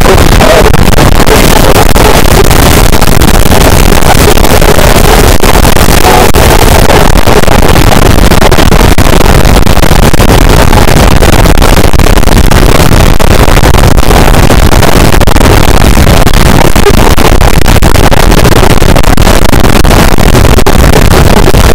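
Harsh noise wall: a dense, unbroken wall of distorted noise at full level, with no pitch, no rhythm and no pauses, its texture churning but never changing in loudness.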